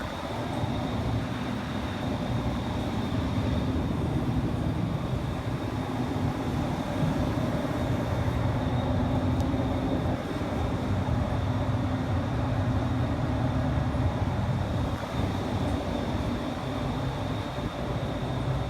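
Carrier air-conditioning system running steadily: a constant mechanical hum and rumble with a faint high whine over it.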